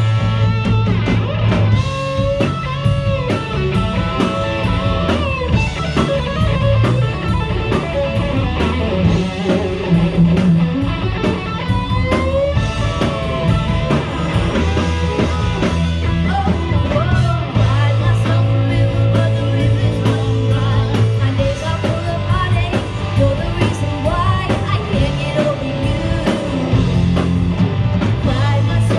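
Live rock band playing: a woman singing over electric guitars and a drum kit.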